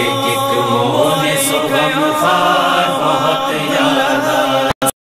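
Voices chanting together in a noha chorus, a sustained unaccompanied vocal line between verses. The sound cuts out briefly just before the end.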